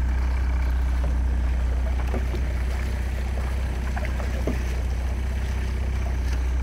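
Motorboat engine running at a steady low drone, with a few faint splashes of kayak paddles dipping into the water.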